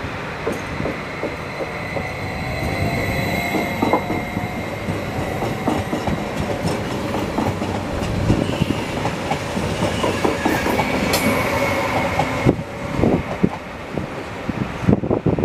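Leo Express Stadler FLIRT electric multiple unit rolling past along the platform, its wheels clacking over rail joints, with a thin high squeal coming and going. It draws away and fades near the end.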